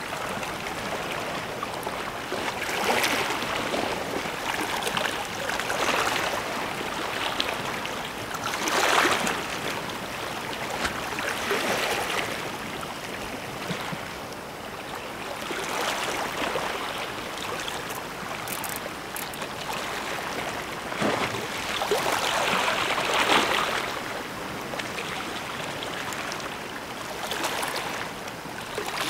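Sea waves washing and splashing against the shore, swelling every few seconds.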